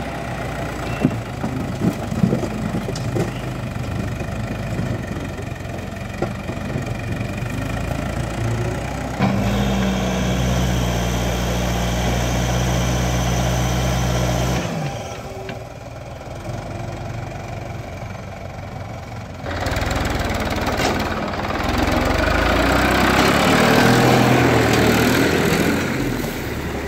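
Diesel engines of a backhoe loader and a Massey Ferguson 1035 DI tractor running as the loader dumps earth and broken brick into the tractor's trolley. A few sharp knocks of rubble come a few seconds in, and a long pour of earth into the trolley is heard near the end. The engine sound changes abruptly a few times.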